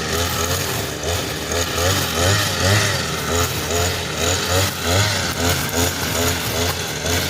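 Petrol brush cutter running at high speed, its engine pitch dipping and recovering about once or twice a second as it cuts through grass.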